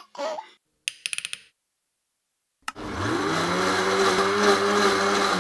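Cartoon sound effect of an electric blender switching on with a click about two and a half seconds in. The motor spins up, rising in pitch, then runs with a steady whir to blend fruit juice.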